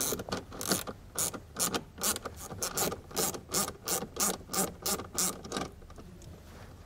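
Ratchet wrench with an 8 mm socket on an extension clicking in quick repeated strokes, about three a second, as a bolt is backed out. The clicking stops shortly before the end.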